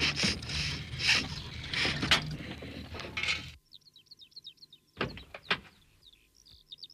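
A small van's engine running as it pulls up, cutting off about three and a half seconds in. Birds then chirp, and a door clunks twice as it is opened.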